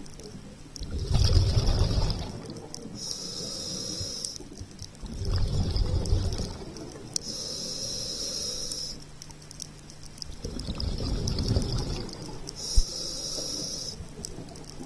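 Scuba diver breathing through a regulator underwater: a hiss on each inhale and a burst of bubbles on each exhale, about three breaths. A single sharp click near the end.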